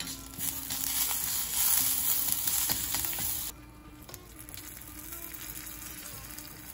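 Tadka of mustard seeds, dried red chili, curry leaf and hing sizzling in hot oil for about three and a half seconds, then cutting off suddenly.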